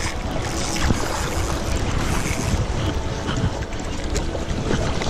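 Wind buffeting the microphone over the wash of sea waves, a steady rushing noise with a heavy low rumble.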